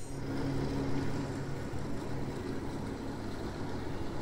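A steady low mechanical hum, like an engine idling, with two held tones that ease off about halfway through.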